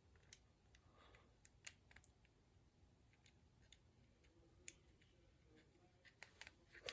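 Near silence with faint, scattered sharp clicks from small plastic toy parts and screws being handled during reassembly.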